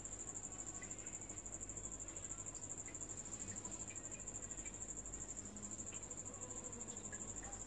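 A steady high-pitched whine, unchanging throughout, over a faint low hum, with a few faint soft ticks.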